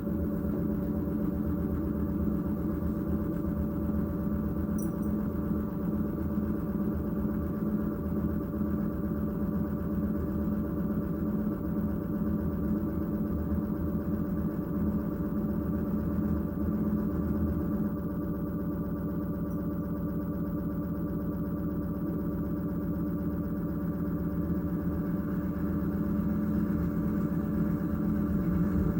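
LG Direct Drive front-loading washing machine on a spin-only cycle: the drum spins at a steady speed with a steady motor whine over a low rumble. The sound eases slightly about two-thirds of the way through.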